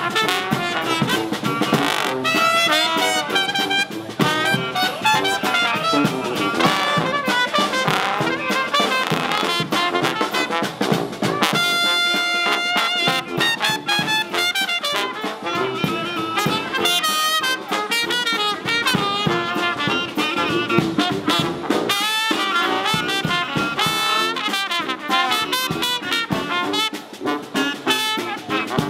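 New Orleans second-line brass band playing jazz, with trumpets and trombone. The band holds one long chord about twelve seconds in.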